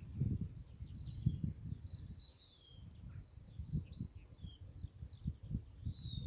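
Several wild songbirds singing at once, a busy mix of short chirps and whistled phrases. An uneven low rumble runs underneath and is the loudest part.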